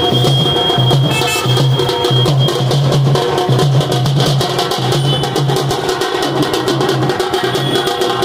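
Procession drums beaten with sticks in a fast, steady rhythm.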